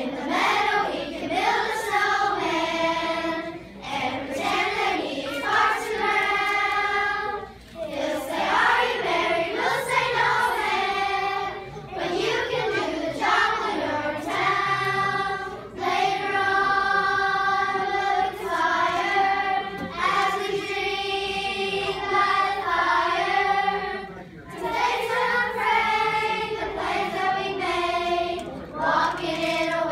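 Children's choir singing, in sung phrases of a few seconds each with brief pauses for breath between them.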